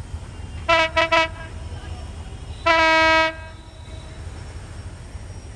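Train locomotive horn sounding three quick short blasts, then one longer blast about two seconds later, over a steady low rumble.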